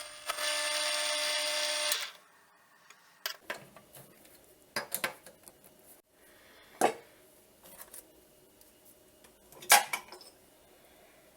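A small electric power tool runs for about two seconds with a steady whine and hiss, then stops abruptly. After it come scattered light clicks and knocks.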